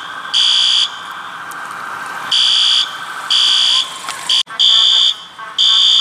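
Building fire alarm horn sounding the temporal-three evacuation code: half-second high buzzing blasts about a second apart, in sets of three with a longer pause between sets.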